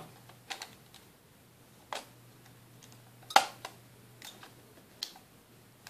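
A Nikon 1 lens being twisted onto the bayonet mount of a Nikon V1 camera body by hand: a handful of separate sharp plastic-and-metal clicks, the loudest about three and a half seconds in.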